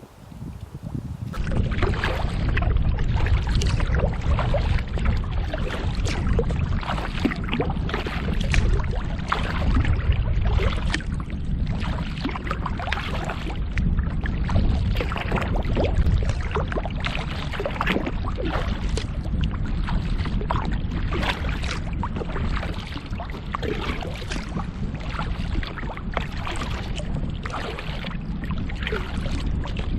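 Water splashing and sloshing around a kayak, with a steady low rumble of wind on the microphone; it starts abruptly about a second in.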